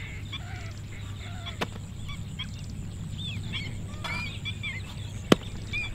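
Birds chirping and calling over a low steady rumble. There are two sharp clicks, a light one about a second and a half in and a louder one near the end, as a metal spatula strikes the iron tawa.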